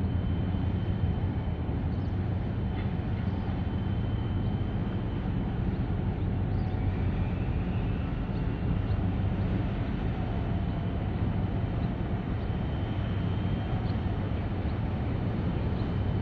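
Steady low drone of a passing container ship's diesel engine, with a faint high whine held above it.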